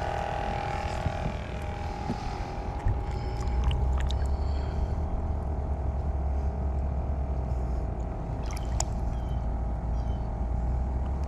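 Water sloshing at a boat's side as a snook is held in it by hand, over a constant hum and a steady low rumble that comes in a few seconds in.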